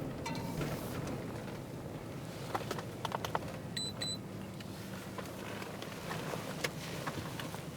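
Patrol car running, heard from inside the cabin as a steady low hum, with a few light clicks and two short high beeps about four seconds in.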